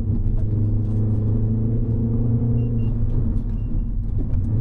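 Mini Cooper S's turbocharged four-cylinder engine running steadily under way, with road and tyre noise. The engine note dips slightly midway and begins to rise again near the end.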